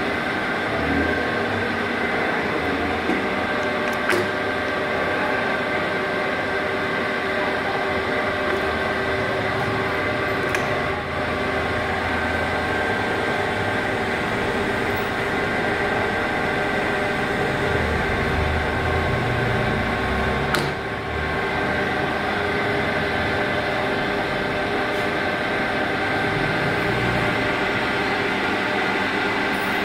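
Tuda metal lathe running with its spindle and chuck turning: a steady mechanical hum with several steady whining tones, and a few brief clicks.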